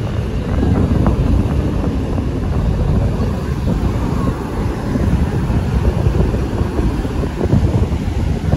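Wind buffeting the microphone: a loud, gusting low rumble that swells and dips.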